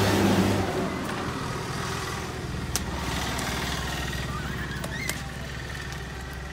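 Steady low drone of an idling engine, which drops to a lower pitch about a second in. A couple of sharp clicks and a faint squeak sound over it.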